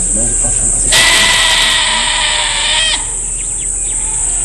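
A goat bleating: one long call of about two seconds that wavers near its end.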